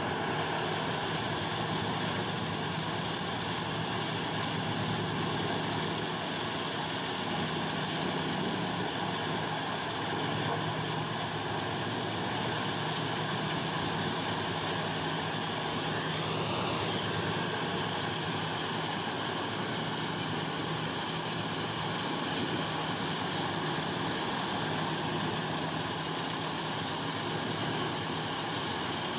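Eschlböck Biber 92 truck-mounted wood chipper running steadily while chipping wood, a steady engine-and-drum drone with no big changes in load.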